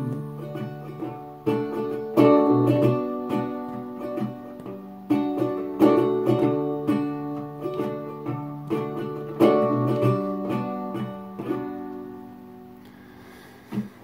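Acoustic plucked-string instrument playing picked and strummed chords as the instrumental ending of a song. The chords die away about two seconds from the end, with one last pluck just before it closes.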